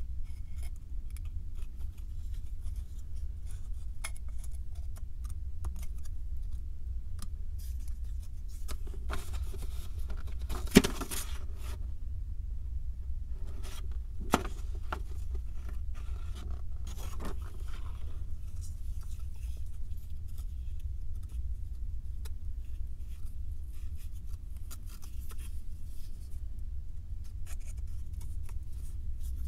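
Small handling sounds of 3D puzzle pieces being worked by hand: scattered light clicks and scraping, busier around the middle, with a sharp snap about eleven seconds in and another a few seconds later. A steady low hum runs underneath.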